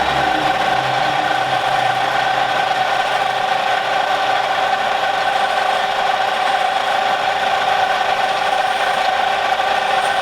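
A workshop machine running steadily, a constant hum with one strong mid-pitched tone that does not change in speed or load.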